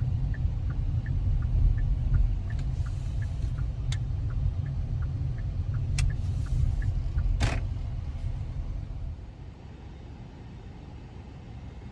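Low rumble of a car, with a steady light ticking about three times a second that stops about seven seconds in, and a few sharp clicks. The rumble drops away about nine seconds in.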